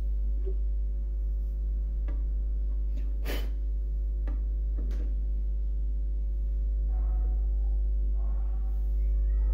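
Steady electrical hum from a portable suitcase turntable's built-in speakers while the stylus is lifted, broken by scattered clicks and knocks as the vinyl record is handled on the platter and the tonearm is moved; the sharpest knock comes about three seconds in.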